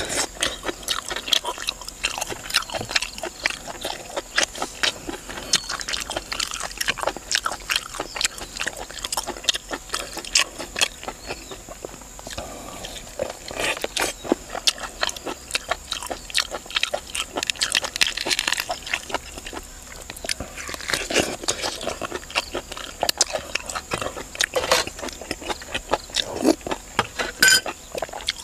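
Close-up chewing and mouth sounds of a person eating cooked fish, a steady run of many small clicks and smacks.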